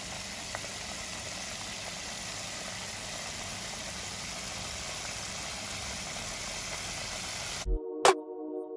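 Breaded chicken wings deep-frying in a pot of oil: a steady sizzle. It cuts off suddenly near the end, and music with a beat starts.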